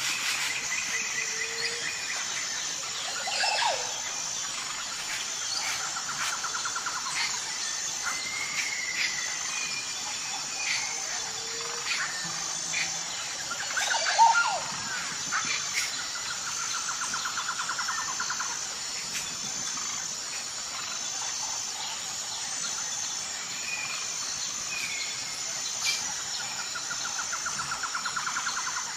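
Wild birds calling and singing: scattered short whistles and chirps, and a rapid trill repeated about three times, roughly ten seconds apart. Under them runs a steady high-pitched insect drone.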